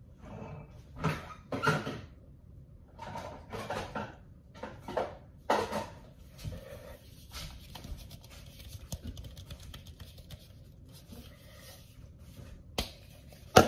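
Scattered rustles and knocks of someone off-picture fetching a bowl from the kitchen, ending with two sharp clacks a little under a second apart, the loudest sounds, as the bowl is brought to the counter.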